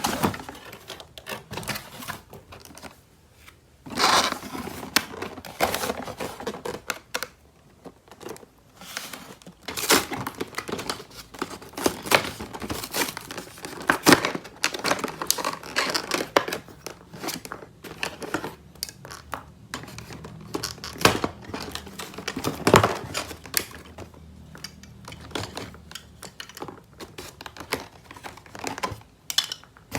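Toy packaging being handled, crinkled and torn open: irregular crackling and rustling with sharp clicks, in bursts that are loudest about four, ten, fourteen and twenty-three seconds in.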